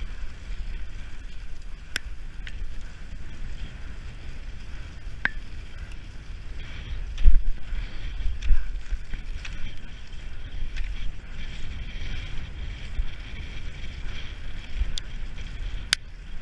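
Cross-country skis hissing as they glide on packed snow, with wind rumbling on the microphone and a few sharp clicks.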